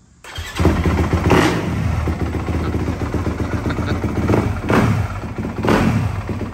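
2022 Yamaha four-stroke motocross bike started cold on its electric start button, the engine catching at once and running with several throttle blips.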